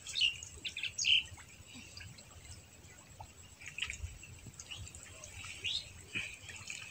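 Small birds chirping, a cluster of short calls in the first second and scattered single chirps after.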